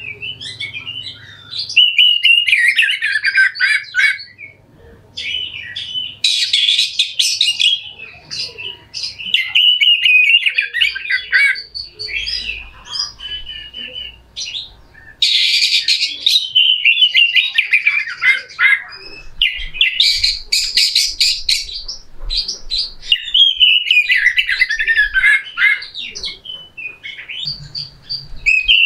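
Oriental magpie-robin (kacer) singing a rough, harsh song: loud phrases of rapid chattering trills and sliding whistles, mixed with several harsh rasping bursts and broken by short pauses.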